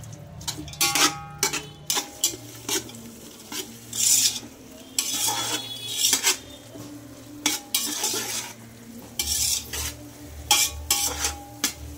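Perforated metal skimmer spoon scraping and clinking against a metal pot in irregular strokes while stirring sliced onions that sizzle in hot oil.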